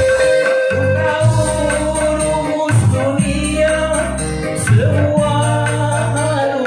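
Live amplified organ tunggal band music: electric guitar and keyboard over steady bass notes and a regular beat with ticking cymbal. A voice sings long held notes that bend in pitch.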